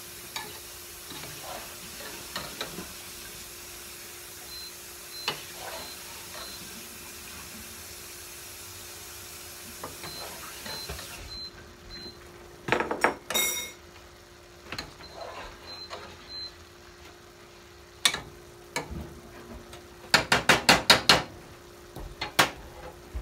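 Garlic shrimp sizzling in a skillet, with a steady low hum under it. Metal utensils clink and knock against the pots: a cluster about halfway through, and a quick run of about eight knocks near the end.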